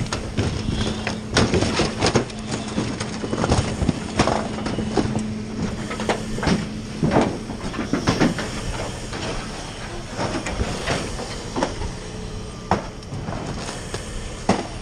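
A fire hose stream spraying onto burning debris and sheet-metal roofing: a continuous rush and hiss of water and steam, broken by irregular cracks and knocks, over a steady low hum.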